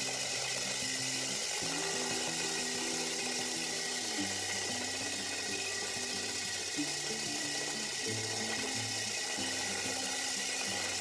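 A cordless drill turns a 152 mm diamond core bit through an outside wall, making a steady grinding hiss. Background music of held low notes plays underneath.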